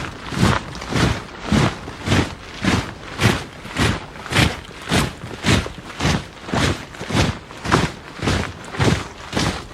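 Soldiers marching in step: boots hitting the ground together in an even beat of a little under two steps a second.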